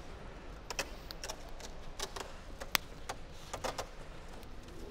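Scattered light clicks and taps, a dozen or so at irregular spacing, the sharpest a little past halfway, over a faint steady low hum.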